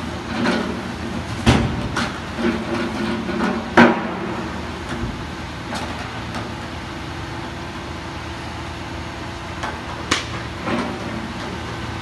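Grab lorry's engine and hydraulic crane running steadily, with a series of sharp clunks and knocks from the steel grab and rubble against the tipper body, thickest in the first four seconds with the loudest bang near the four-second mark, and a few more about ten seconds in.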